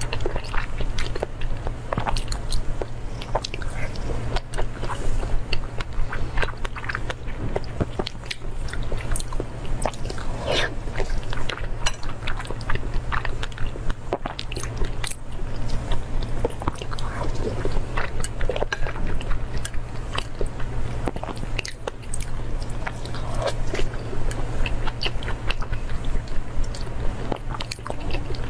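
Close-miked chewing of raw salmon rolls: wet mouth sounds with many small clicks, over a steady low hum.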